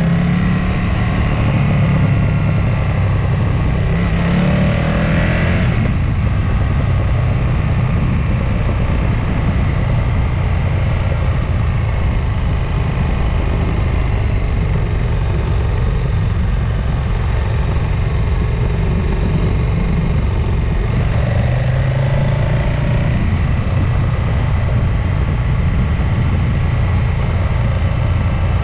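Road vehicle on a mountain-pass descent: a steady, loud rush of wind and road noise, with an engine's pitch rising for a few seconds near the start and again about 21 seconds in.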